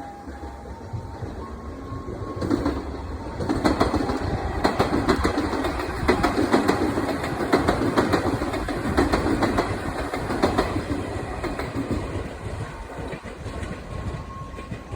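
Electric commuter train passing, its wheels clacking rapidly over the rail joints. It builds from about two seconds in, is loudest in the middle, and fades away over the last few seconds.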